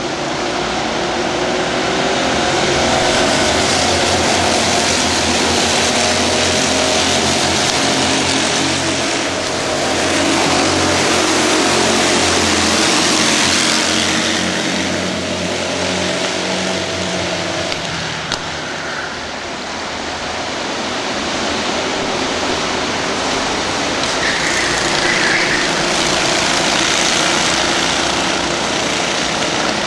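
A pack of racing karts' engines running hard as they race past, the sound swelling and fading several times as groups of karts come by.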